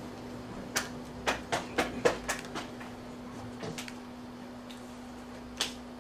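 Typing on a laptop keyboard: a quick run of sharp key clicks about a second in, then a few scattered clicks, over a steady low hum.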